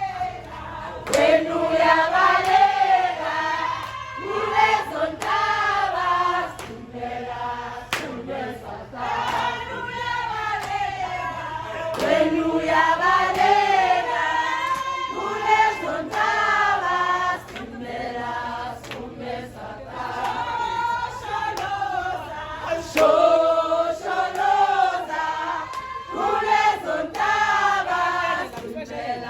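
A group of voices singing together, with a few sharp knocks standing out from the singing.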